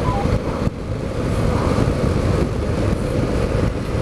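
Motorcycle on the move: the engine running under a steady rush of wind over the bike-mounted camera's microphone.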